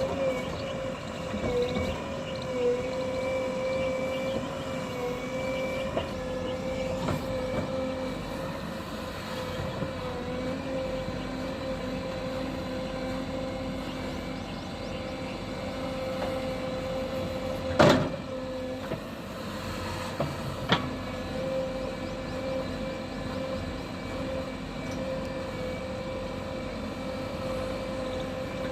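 JCB 3DX backhoe loader's diesel engine running steadily with a constant whine, broken by a few sharp metallic knocks, the loudest a little past the middle and another a few seconds after.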